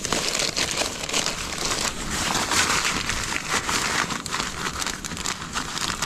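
Continuous crinkly rustling and crackling of gear being rummaged through by hand.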